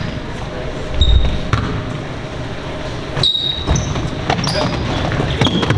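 A basketball bouncing on a gym's hardwood floor during play, with short high sneaker squeaks and scattered knocks echoing in the gym.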